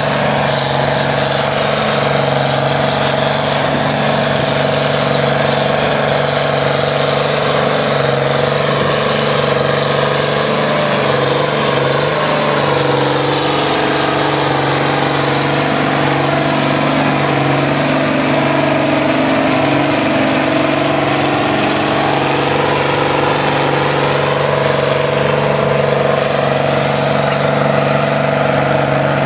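Diesel tractor engine working hard at full load while pulling a weighted sled through soft ground: a steady, heavy drone whose pitch wavers about halfway through and then holds again.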